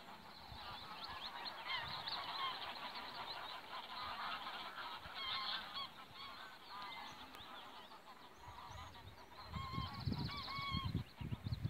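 A flock of geese honking: many short calls overlapping one another, with wind rumbling on the microphone near the end.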